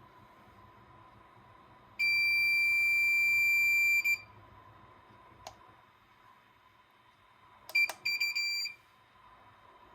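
Federal Signal SSP3000B siren amplifier sounding a steady, high-pitched beep for about two seconds. A switch click follows, then more clicks and a short, stuttering beep of the same pitch near the end.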